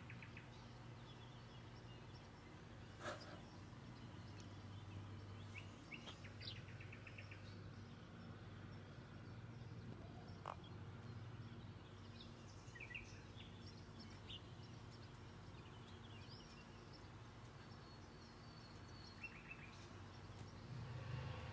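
Faint outdoor ambience with small birds chirping: short rapid trills and single chirps, a few times, over a low steady hum. Two faint clicks.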